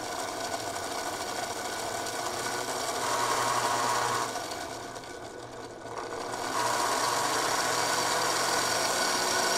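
Electric motor and freshly greased gears of a Lionel U36C O gauge diesel locomotive running under power, a steady whir as the grease is worked into the gears. It slows and quietens for about two seconds in the middle, then speeds back up.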